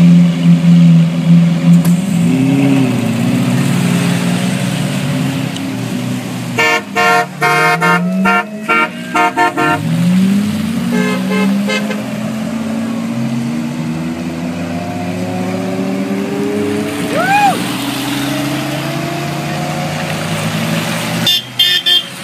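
Rally cars' engines running and revving as they pull away one after another, the pitch rising and falling as each one accelerates past. Over them, car horns honk in quick repeated toots, a long bout about a third of the way in, a shorter one soon after and another near the end.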